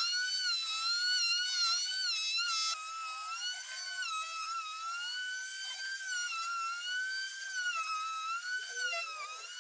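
Electric router running at speed, taking flattening passes across the face of a log slab. It makes a high whine that wavers up and down in pitch as the bit loads and unloads in the wood.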